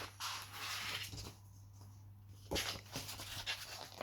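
Paper rustling as a picture-book page is turned, with a soft knock partway through.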